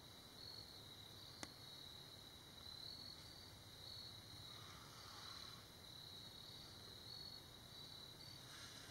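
Faint, steady high chirring of crickets, with a single sharp click about a second and a half in.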